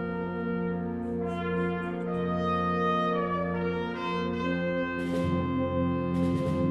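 Concert band playing sustained brass chords, with a higher melody line joining about a second in and percussion strokes coming in about five seconds in.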